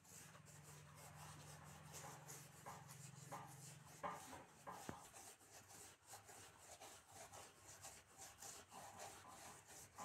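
Faint, repeated rubbing strokes of a hand spreading sticky rubber solution over a buffed tyre tread before retreading.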